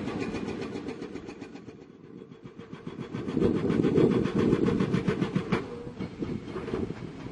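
Hydraulic rock breaker on an excavator hammering rock: a rapid, even train of blows, about ten a second. It eases off around two seconds in and builds up again a second later.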